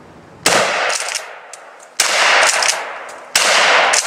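Three shots from a Maverick 88 12-gauge pump-action shotgun firing 00 buckshot, each with a rolling echo that dies away over about half a second. The shots come about a second and a half apart, with the clack of the pump being worked in between.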